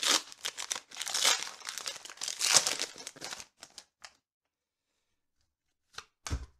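Foil Pokémon booster-pack wrapper crinkling and tearing as it is pulled off the cards, for about three and a half seconds, then stopping. Near the end, two short knocks, the second with a soft low thump.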